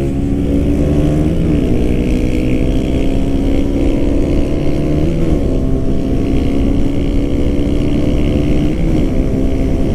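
2017 KTM Duke 125's single-cylinder four-stroke engine, on its stock exhaust, accelerating hard from about 35 to 55 mph. The note is interrupted three times by short gear changes, about one and a half, five and nine seconds in, over a low wind rush.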